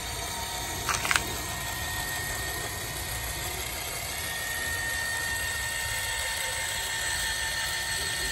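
Electric linear actuator running with a steady whine as it pushes the hinged steel arm of a motorized TV mount down toward full extension. Two quick clicks about a second in.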